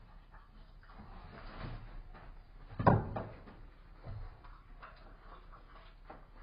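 An Amur leopard cub handling and dragging a small hoofed carcass on a wooden floor: scuffs and knocks, with one loud thump about three seconds in and a smaller knock a second later.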